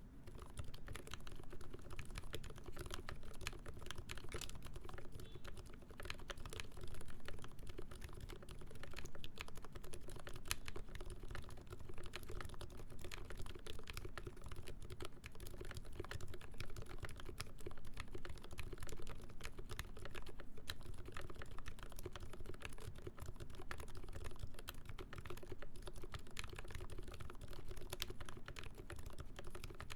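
Continuous typing on a TMO50v2 mechanical keyboard: lubed ZealPC Roselios switches in a full brass plate under GMK keycaps, a dense stream of keystrokes with lubed screw-in stabilizers on the long keys.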